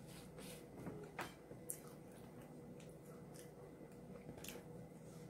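Faint eating sounds from chewing a Taco Bell Mexican pizza: scattered soft crunches and wet mouth clicks, a sharper one about a second in, over a faint steady hum.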